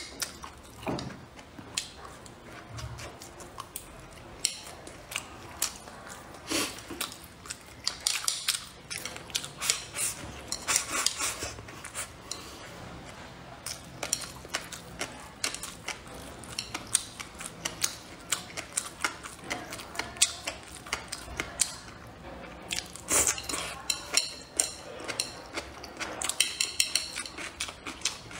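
Close-miked chewing and lip-smacking of a mouthful of rice and braised pork belly, with chopsticks clicking against a ceramic bowl, in many short irregular clicks.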